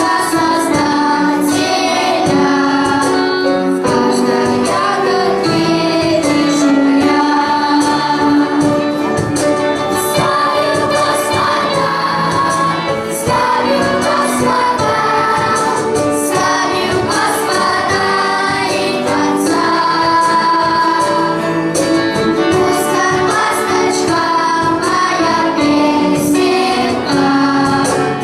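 Music: a choir of children's and women's voices singing a song over instrumental accompaniment with a steady beat.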